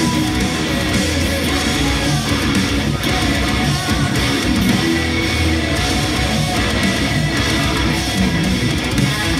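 Electric guitar, an Acacia Romulus played through a Line 6 Helix amp modeller, playing a heavy metal part without a break.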